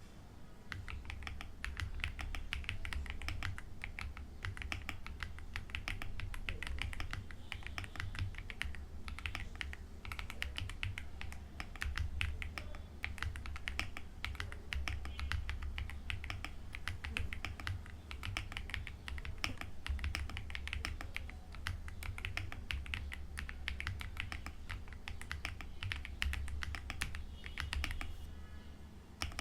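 Typing on an Aula F87 Pro tenkeyless mechanical keyboard: a fast, steady run of keystrokes, many clacks a second, starting about a second in.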